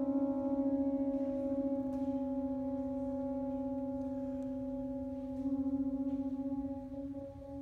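Saxophone quartet of soprano, alto, tenor and baritone saxophones holding a sustained chord, the tones wavering in a steady fast beat. Near the end the sound dips briefly and the chord re-forms with a higher note added.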